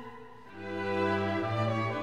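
Background music of slow, held notes; it dips briefly just after the start and swells back about half a second in.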